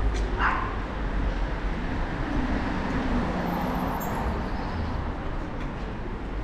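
A small dog barks once, a short sharp yap about half a second in, over the steady hum and rumble of a city street.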